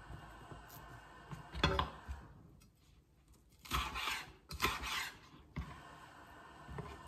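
Chef's knife slicing a red bell pepper into strips on a plastic cutting board: a knock about a second and a half in, then two long slicing strokes through the pepper a little past the middle.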